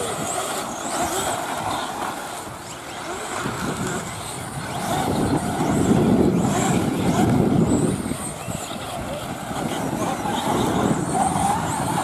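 Radio-controlled off-road buggies and short-course trucks racing on a dirt track, their motors and tyres on the loose dirt rising and falling as the cars pass, loudest about halfway through.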